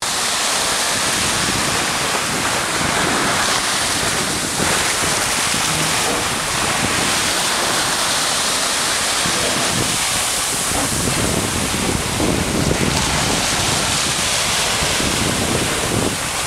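Small waves breaking and washing up a sand beach in a steady surf wash, with some wind noise on the microphone adding an uneven low rumble.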